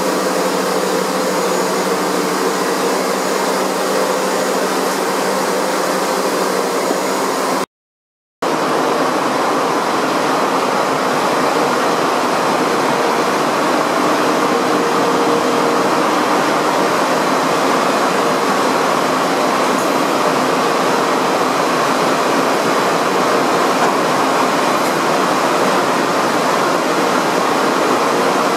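Steady din of factory machinery and ventilation on a laminating production floor: a continuous noisy hum with a few faint steady tones. It cuts out abruptly for under a second about eight seconds in, then resumes unchanged.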